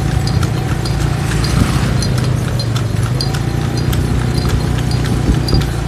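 Horse hooves clip-clopping on a paved road as the horse pulls a dokar (Javanese horse cart), in an even rhythm of about two beats a second.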